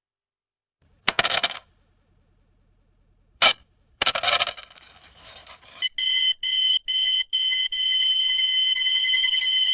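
Coins clattering in two short bursts, with a sharp click between them. Then, about six seconds in, a high electronic beep sounds four short times and holds as a steady tone.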